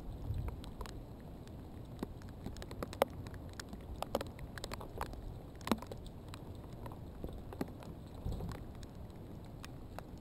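Light rain: scattered raindrops ticking irregularly, a few sharper ticks among them, over a low rumble of wind and camera handling.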